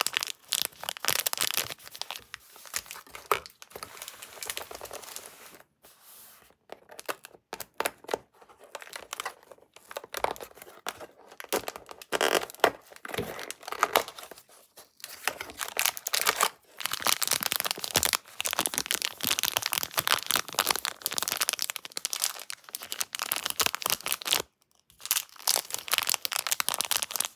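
Haribo candy packaging crinkling and tearing as it is handled and opened, in dense crackly bursts with short quieter gaps, busiest over the second half.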